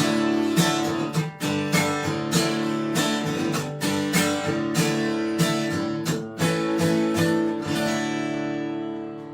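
Acoustic guitar strummed in a steady rhythm as the outro of a country song, ending on a chord left to ring and fade.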